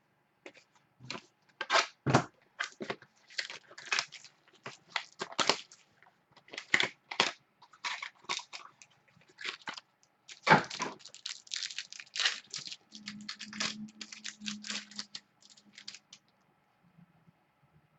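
Trading card pack wrappers being torn open and crinkled, with cards handled, making an irregular run of crackles and rustles that gets busier in the second half.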